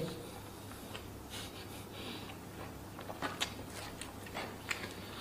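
Close-up eating sounds from a man with a full mouth: chewing and breathing through the nose, with a short hum at the start. Scattered soft clicks and rustles come from fingers picking rice and a fried fritter off a tray.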